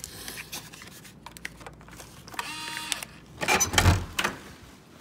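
Hotel door keycard lock being opened: small clicks as the card goes in, a short electronic tone from the lock about two and a half seconds in as it releases, then the lever handle is pushed down and the latch and door clunk open.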